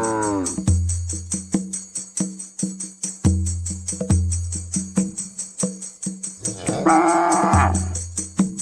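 Background music with a steady tambourine beat and bass notes. About seven seconds in, a short cow moo sounds over it.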